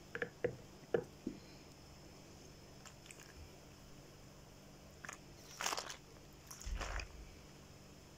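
A yellow plastic lid on a pickle jar gives a few sharp clicks in the first second as it is pressed and twisted shut. Later the filled jar of peppers in brine is tipped over, with two short sloshing rushes of liquid and a dull knock about seven seconds in.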